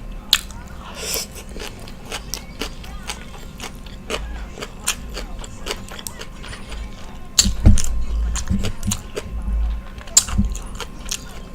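Close-miked chewing and eating: a rapid, irregular string of wet mouth clicks and crunches, with a few heavier bites and swallows past the middle.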